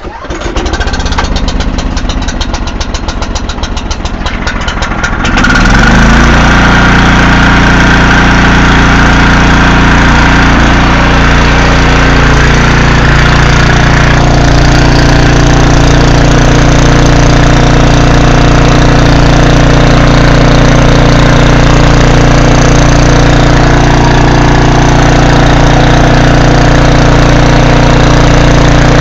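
Briggs & Stratton OHV generator engine, cold-started on choke, catches about half a second in and runs roughly for about five seconds. It then settles into a steady, even run, with fuel flowing through a newly fitted inline fuel filter.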